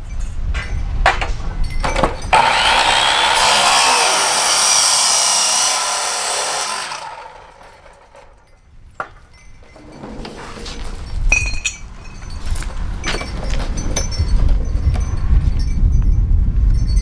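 A 10-inch miter saw fitted with an abrasive cutoff disc cuts through square steel tubing for about five seconds, then winds down. Scattered knocks and clinks of the steel being handled follow.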